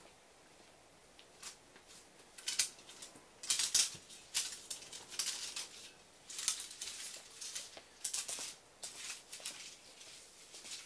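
Footsteps: a run of irregular scuffing, shuffling steps.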